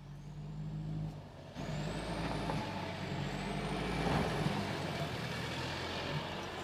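2023 Mercedes-Benz GLC SUV driving through a dirt off-road rut. A steady low engine hum is joined about a second and a half in by the crunch and scrabble of tyres on loose dirt and gravel, loudest as it passes about four seconds in. A faint high whine rises and dips above it.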